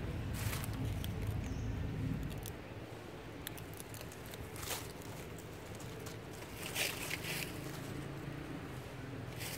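Outdoor ambience: a low rumble for the first couple of seconds, then a few short rustles and crackles of dry leaves, about three of them, as monkeys shift about on the leaf litter.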